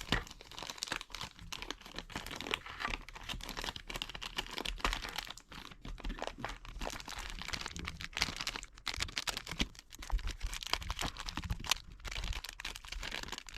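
Plastic packaging being torn open and crinkled by hand, an irregular run of crackles, rips and rustles, as a Weilong Pyraminx puzzle is unwrapped.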